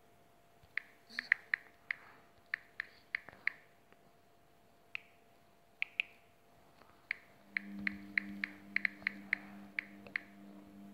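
Typing on a smartphone's on-screen keyboard: short sharp taps in quick irregular runs, with brief pauses between words. A low steady hum comes in about seven and a half seconds in.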